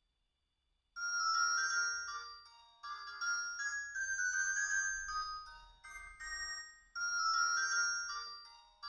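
Alcatel One Touch 217D mobile phone playing a ringtone through its speaker: after about a second of silence a synthesized melody with several notes at once starts, playing in short phrases that restart near three and near seven seconds.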